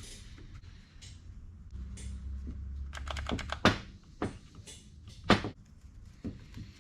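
Irregular light clicks and taps of small parts being handled during repair of an angle grinder, with two sharper clacks, one just past halfway and one about three-quarters through. A low hum sounds briefly in the middle.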